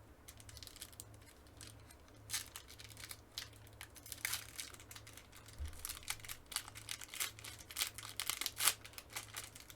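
Wrapper of a baseball card pack being torn open and crinkled by hand, a run of irregular crackles, over a faint low hum.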